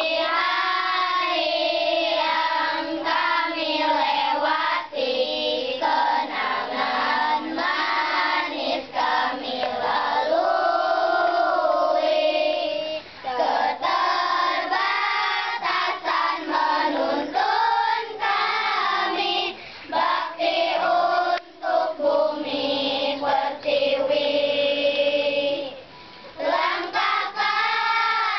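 A choir of schoolchildren singing a song together, line by line, with brief pauses between phrases.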